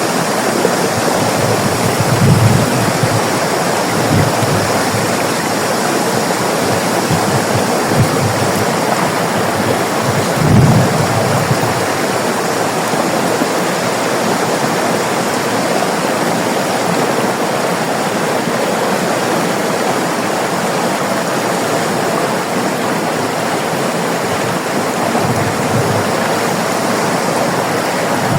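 River water flowing over rocks, a steady rushing with a few brief deeper gurgles or surges.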